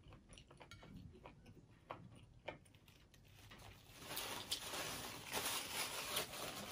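A few faint small clicks, then from about four seconds in a soft rustling and crinkling of a paper napkin pressed to the mouth and folded in the hands.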